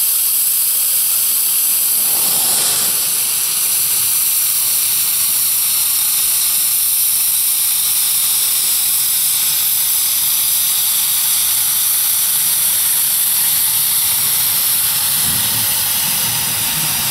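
1924 Wee Georgie Wood narrow-gauge steam locomotive hissing steadily with escaping steam as it edges forward. A low rumble joins near the end.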